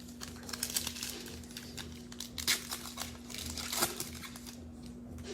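Crinkling and rustling as a trading card is slid into a soft plastic penny sleeve and handled, heard as a run of small scrapes and clicks.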